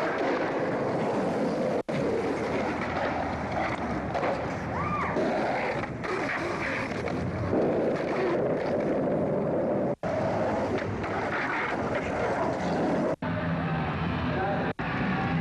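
Skateboard wheels rolling and scraping on concrete, picked up by the camcorder with wind on the microphone, as a steady rough noise. It cuts out for a split second four times where the clips are spliced together.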